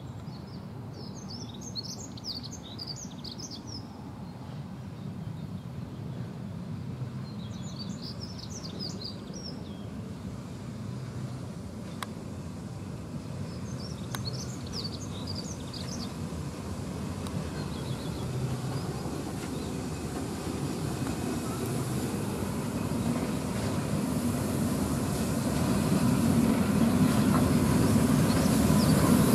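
ČSD class 555.0 steam locomotive, a rebuilt German class 52, running slowly. Its low rumble grows steadily louder as it draws near and passes close by. Birds chirp in short bursts during the first half.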